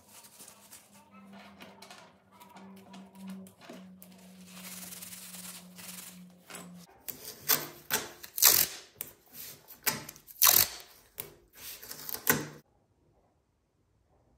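Masking tape pulled off the roll in quick crackling, tearing strokes and pressed down onto a wooden workbench, after quieter handling noise over a faint low hum; it cuts off suddenly near the end.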